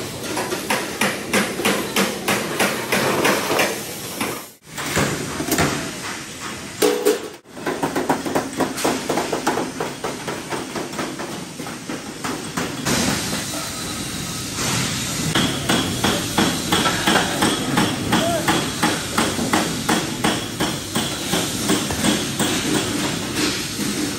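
Repeated hammer blows in quick runs, several a second, over steady workshop noise. The sound drops out for an instant about four and a half seconds in and again about seven seconds in.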